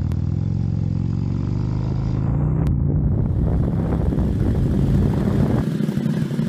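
Touring motorcycle engine accelerating from a stop, its pitch rising over the first couple of seconds, with wind rushing past louder as it picks up speed. The deep engine note falls away about five and a half seconds in as the throttle eases.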